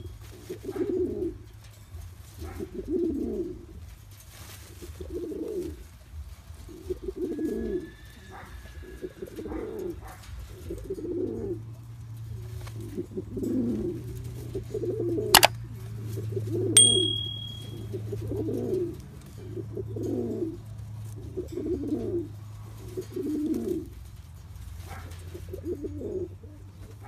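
Domestic pigeon cooing, a steady series of low calls about every two seconds. A single sharp click comes about midway, and a short high beep follows just after it.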